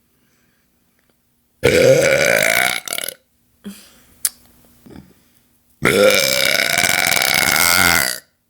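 A person belching loudly twice: a short burp about a second and a half in, then a longer, drawn-out one lasting over two seconds near the end.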